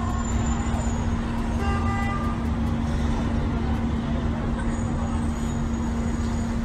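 City street traffic noise: a steady low rumble of vehicles with a constant hum, and a short pitched tone about two seconds in.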